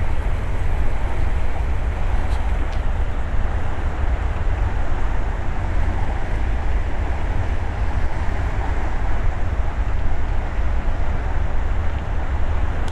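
Steady rushing roar of a flash-flooding river, with a deep rumble underneath.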